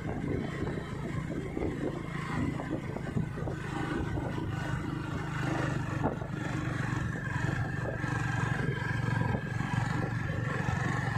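A vehicle's engine running steadily on the move, with a constant low hum and a haze of wind and road noise. A faint steady high tone joins about halfway through.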